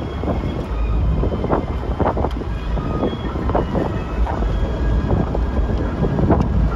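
Wind buffeting the microphone in irregular gusts over the steady low rumble of a moving vehicle.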